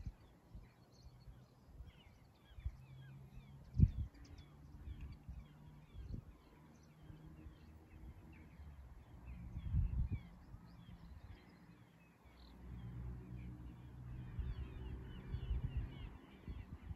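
Small birds singing and chirping continuously over gusty wind rumbling on the microphone. The wind surges at about 4 s, around 10 s, and again through the last few seconds.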